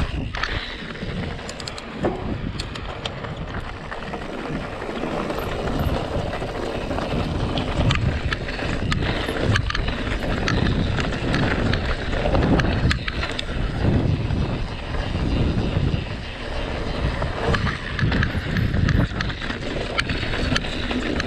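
Mountain bike riding down a rocky dirt trail, a Santa Cruz Blur TR: wind rumbling on the camera microphone over tyres rolling across dirt and rock, with scattered clicks and rattles from the bike.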